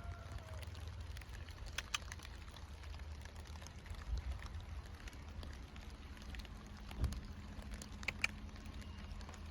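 Low, steady rumbling background noise, with a few faint sharp clicks about two seconds in and again near the end, and a soft thump in between.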